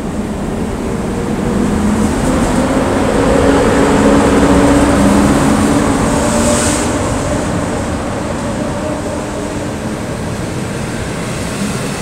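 An EP07 electric locomotive pulling away from the platform with its train, its traction motors and blowers humming as it goes by, loudest about four seconds in, followed by passenger coaches rolling past on the rails. A brief hiss comes about six and a half seconds in.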